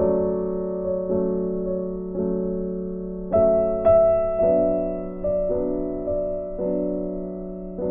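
Background piano music: slow chords struck about once a second, each fading before the next, with the brightest, loudest notes near the middle.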